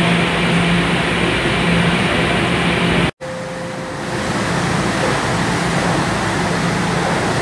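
Toronto subway train running through a station, a loud steady rumble with a motor hum. The sound cuts out for an instant about three seconds in, then another subway train, a Toronto Rocket, is heard coming into the platform, growing louder.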